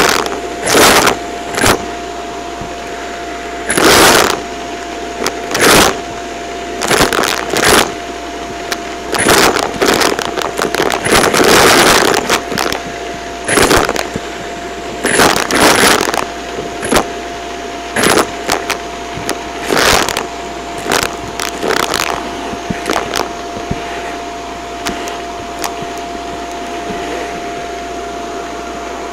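Bagless upright vacuum cleaner running with a steady whine, while small hard debris (kernels, confetti and foil bits) rattles through the hose into its clear dust bin in repeated loud bursts, which come thick at first and thin out toward the end.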